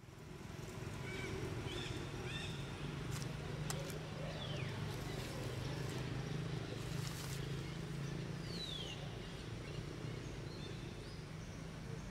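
Outdoor ambience fading in, a steady low hum with a few short, high, downward-sliding chirps scattered through it.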